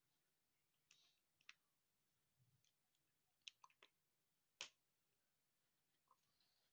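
Faint, scattered clicks and taps of small Lego plastic pieces being handled and pressed together during a build. The sharpest click comes a little after halfway.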